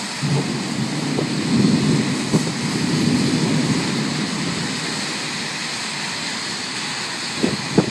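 Steady hiss of wind and rain in a thunderstorm. A low rumble swells in just after the start, peaks a couple of seconds in and fades away. A few short knocks come near the end.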